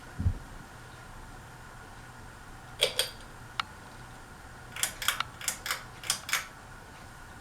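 Encon ceiling fan running with a steady motor hum. A low thump comes just after the start, then a series of sharp clicks, two near three seconds and a quick run of about eight around five to six seconds.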